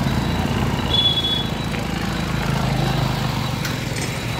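Small motorcycle and scooter engines running at low speed close by, a steady low rumble, with a short high beep about a second in.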